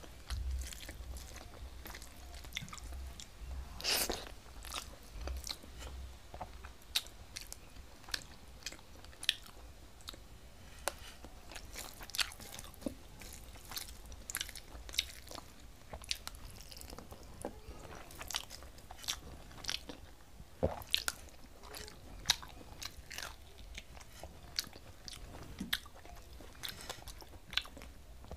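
A person chewing mouthfuls of rice and fish curry eaten by hand, with irregular sharp clicks and smacks every second or so.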